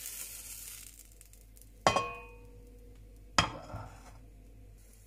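Frying sizzle dying away, then two sharp clinks about a second and a half apart, each ringing briefly: a cooking utensil knocking against cookware.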